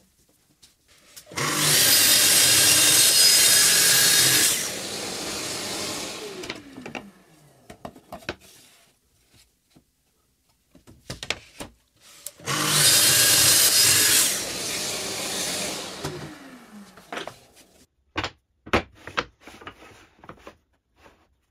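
Plunge-cut tracksaw making two cuts through MDF, each a few seconds of loud cutting followed by the blade winding down with a falling whine. Near the end, a quick series of sharp knocks and clicks as the cut MDF pieces are handled and set down on the bench.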